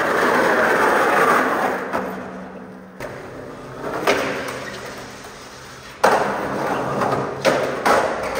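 Skateboard trucks grinding along a concrete ledge: a long scraping grind that fades away over the first two seconds. After a single knock about four seconds in, a sharp clack about six seconds in starts a second grind, with two more clacks of the board near the end.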